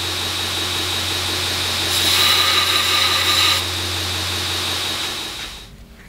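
Belt grinder running steadily while a damascus steel knife blade is pressed against the abrasive belt, with a louder hissing grind for a second and a half about two seconds in. The sound dies away near the end.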